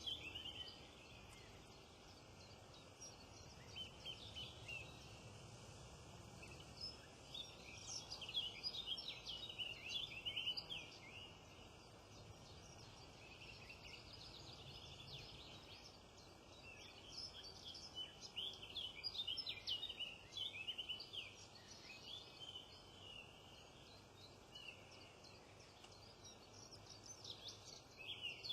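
Small wild birds chirping and twittering in quick, high-pitched bursts that come and go, over a faint steady outdoor hiss.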